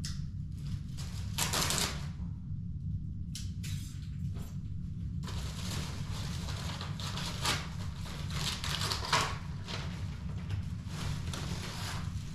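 Irregular clicks, rustling and light clatter of hands working, over a steady low hum.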